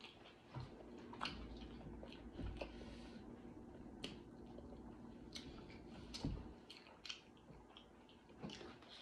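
Close-miked chewing of a mouthful of cucumber, rice and sausage, with wet lip smacks and mouth clicks scattered throughout and a few soft low thumps.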